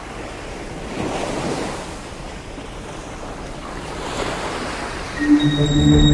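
Sea waves washing, with wind on the microphone, swelling about a second in and again around four seconds. Near the end, music with held tones starts up over it.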